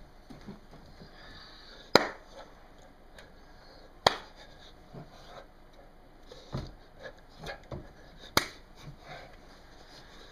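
Sharp, loud clicks made with the hands, three of them, about two, four and eight seconds in, with softer taps and knocks between them in the second half.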